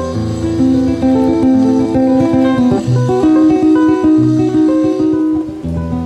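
Nylon-string classical guitar played fingerstyle: a plucked melody over held bass notes.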